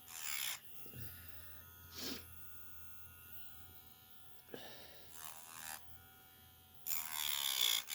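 Electric pet nail grinder running with a steady buzz and low hum while grinding down a cat's claws, with short bursts of noise and a louder burst near the end.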